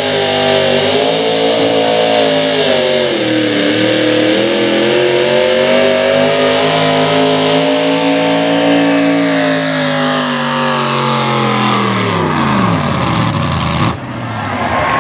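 V8 hot rod pulling tractor running at high revs while pulling the sled, the engine pitch wavering and then climbing. Near the end the revs drop away steeply as the tractor comes to a stop at the end of the pull.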